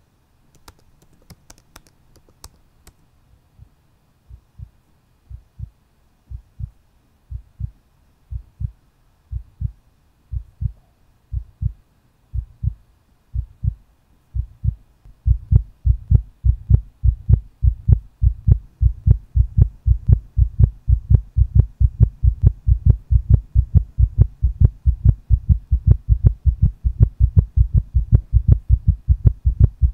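Typing on a laptop keyboard for the first few seconds, then a heartbeat sound effect: low double thumps, faint and slow at first, growing steadily louder and faster until they are loud and quick near the end.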